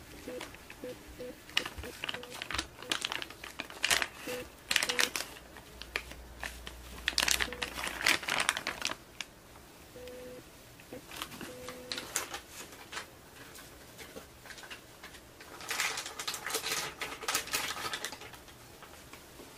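A clear plastic disposable piping bag crinkling in several bursts as it is handled and a metal piping tip is pushed into it.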